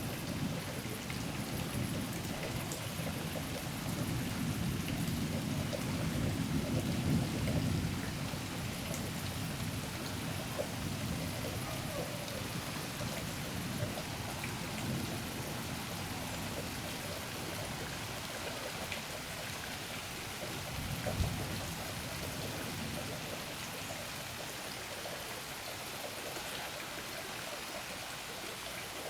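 Steady rain hiss during a thunderstorm, with low thunder rumbling over the first several seconds and dying away. A brief low rumble comes about twenty seconds in.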